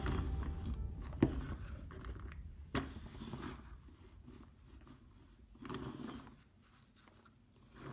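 Soft scraping and light plastic clicks as a plastic toy front loader's bucket is pushed and scooped through kinetic sand, in a few short bursts with quiet gaps between.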